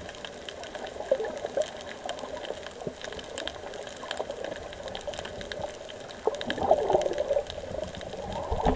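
Underwater water noise heard by a submerged camera: a steady, muffled wash with many scattered sharp clicks. A louder bubbling burble comes about six seconds in and again near the end.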